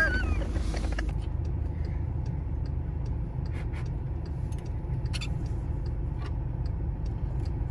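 Low, steady rumble of background noise with a few faint clicks and taps scattered through it, the stronger ones about three and a half and five seconds in.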